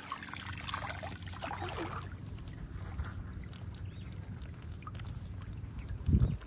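Shallow muddy water splashing and sloshing around the wader's legs and hands for the first two seconds. After that it is quieter, with a faint steady low hum, and a brief low thump about six seconds in.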